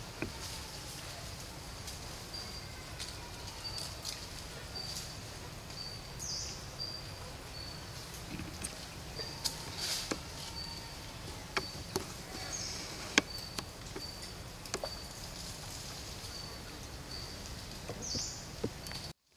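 Forest ambience: a short, high chirp repeats about once a second over a steady low hum, with scattered sharp clicks and snaps of leaf litter and twigs where macaques are moving about.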